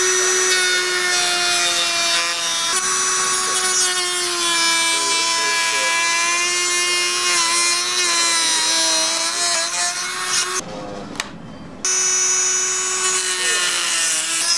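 Handheld rotary tool with a small cutting wheel running at high speed, a steady high-pitched whine with a gritty edge as it cuts through a plastic shroud. It stops about ten and a half seconds in and starts up again about a second later.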